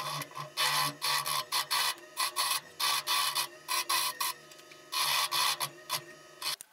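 Jet 1221 VS wood lathe running with a steady hum while a turning tool cuts into the spinning spalted-wood bowl blank in many short, irregular scraping bursts, hollowing out the inside of the bowl.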